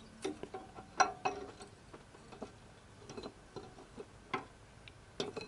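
Light, scattered metal clicks and taps as a Volkswagen engine's camshaft is worked up and out of its seats in the cylinder head, its lobes and journals knocking against the head.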